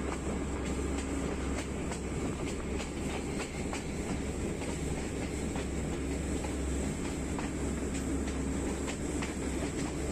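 A passenger train running along the line, heard from aboard: a steady rumble with irregular clicks and knocks from the wheels over the rails.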